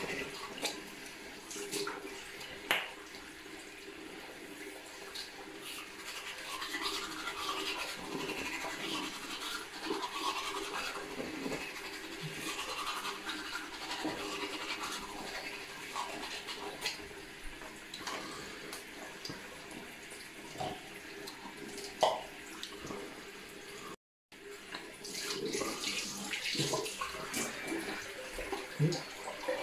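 Toothbrush scrubbing teeth: an irregular, continuous brushing and scraping with a few sharp clicks.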